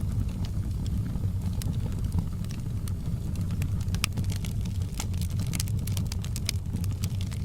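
Wood fire crackling in a fireplace: irregular sharp pops and snaps, thickest in the second half, over a steady low rumble.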